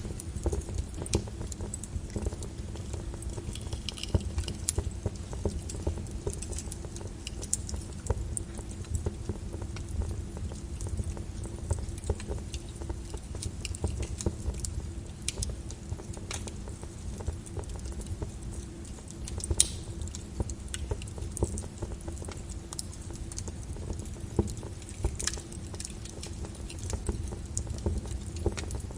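Wood fire crackling in a fireplace: a steady low rumble of flames with frequent small pops and snaps, and one sharper pop near the middle.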